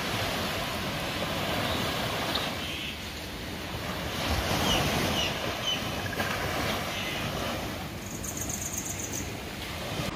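Small waves washing onto a sandy beach: a steady rushing wash that swells and eases.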